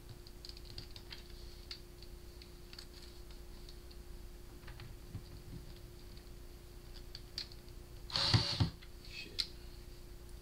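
Screwdriver working the small screws out of a speaker's tweeter: scattered light clicks and ticks of metal on screw and plastic, with one louder scrape about eight seconds in. A faint steady hum runs underneath.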